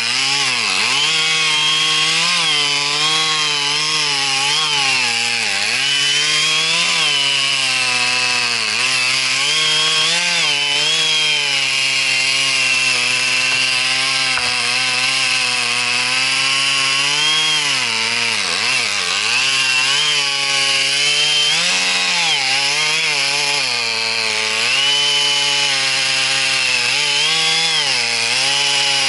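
Chainsaw running at high revs and cutting wood, its engine pitch dipping repeatedly as it bogs under load and climbing back as the load eases.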